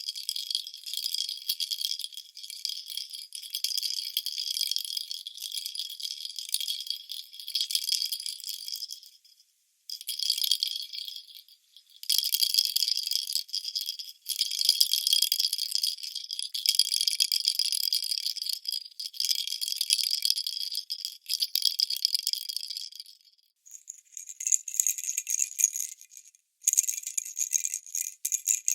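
Baby rattle shaken in long runs of rapid, bright jingling rattle, broken by a couple of short pauses. About two thirds of the way through the ringing changes pitch, and the shaking goes in shorter, choppier bursts.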